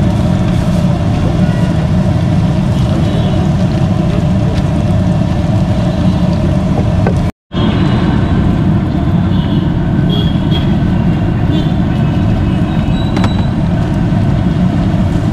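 Bajjis deep-frying in a large kadai of hot oil at a street stall: a steady loud low rumble with the hiss of bubbling oil over it, broken by a brief dropout about seven seconds in.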